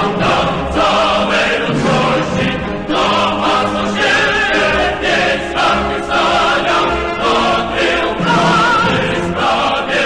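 Choral music: a choir singing with vibrato over instrumental accompaniment.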